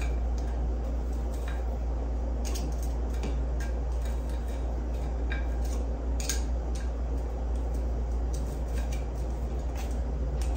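Knife and fork clicking and scraping against a ceramic plate while cutting food, a scattering of short irregular clicks over a steady low hum.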